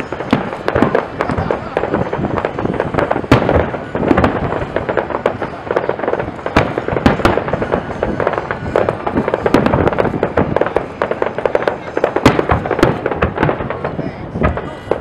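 Aerial firework shells bursting in a dense, continuous run of bangs and crackles, with louder booms every few seconds.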